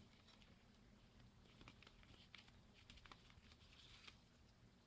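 Faint handling of a plastic CD jewel case being opened: a scattering of small clicks and light rustles.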